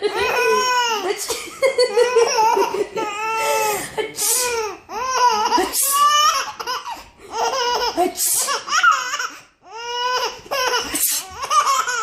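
A baby of about nine months laughing in repeated high-pitched bursts, each peal a second or so long with short breaks between.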